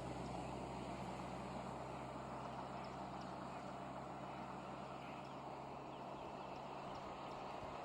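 A vehicle engine idling with a steady low hum that weakens near the end, over outdoor background noise with faint, short high chirps now and then.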